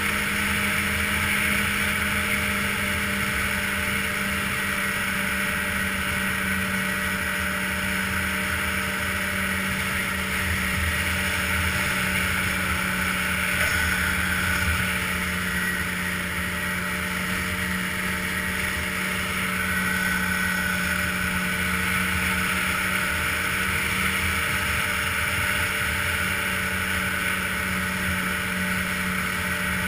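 Ski-Doo touring snowmobile's engine running at a steady cruise along a packed trail, heard from the rider's seat: an even drone that holds its pitch, over the hiss of the track and snow.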